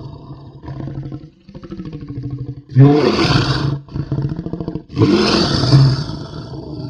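Werewolf creature sound effect: low, rattling growls broken by two loud roars, one about three seconds in and one about five seconds in, each lasting about a second.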